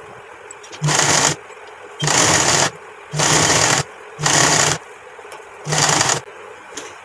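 Black domestic sewing machine stitching a seam, run in five short bursts of about half a second each with brief pauses between them.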